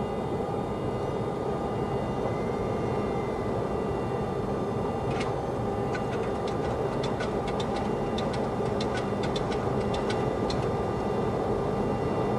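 Steady cockpit noise of a Boeing 737-300 on approach, the constant rush of airflow and engines with a few faint steady tones. A series of short sharp clicks comes in the second half.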